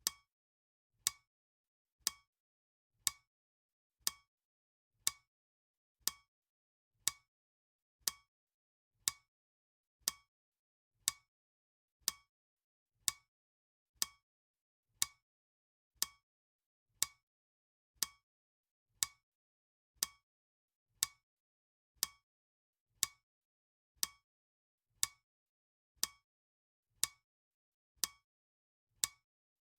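Clock ticking sound effect: one short, sharp tick each second, with dead silence between the ticks.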